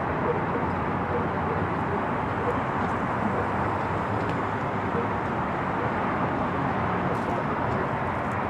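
Steady hum of road traffic on the elevated highway, an even rushing noise that does not change.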